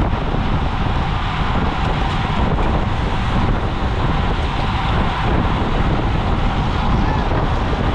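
Steady wind noise buffeting the microphone of a camera riding on a road bicycle in a moving race pack, heavy in the low end.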